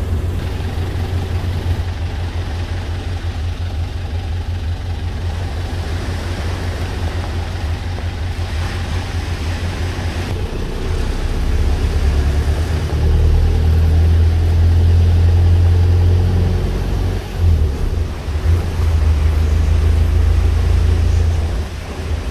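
Motor vehicle running, a steady low engine and road rumble that grows louder about eleven seconds in and eases off again near the end.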